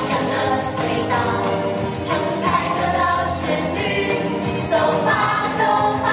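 A chorus of voices singing a Mandarin children's song with a live band.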